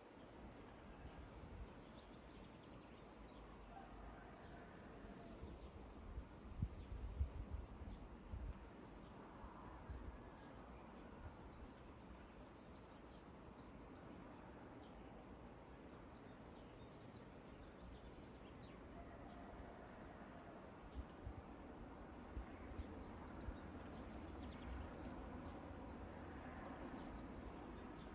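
Faint, steady high-pitched trilling of crickets, with soft low rumbles that peak a few times between about six and ten seconds in.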